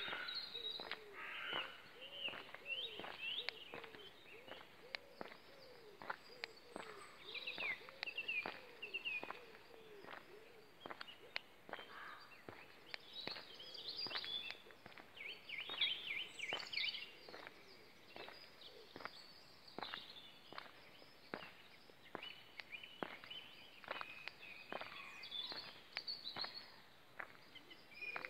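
Several songbirds singing and chirping all around, with steady footsteps on a paved path at walking pace.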